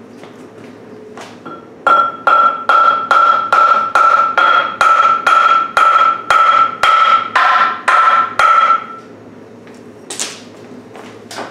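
A hammer striking metal: a steady run of about seventeen blows, two to three a second, each ringing with a clear metallic tone, then a single clank about ten seconds in.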